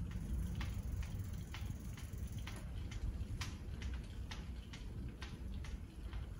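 Bicycle ridden along a smooth concrete floor: a sharp tick about once a second over a low rumble.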